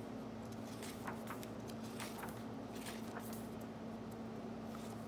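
Paper pages of a 1917 book being turned and smoothed by hand, a string of soft brief rustles, over a steady low electrical hum.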